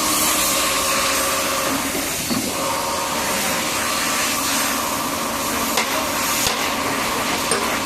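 Metal lathe running steadily: a humming motor whine with a hiss over it. The hum breaks off briefly about two seconds in, and a couple of light clicks come near the end.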